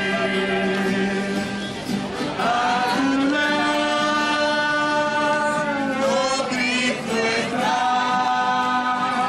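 A choir singing slowly in long held notes, gliding to a new chord about every two to three seconds.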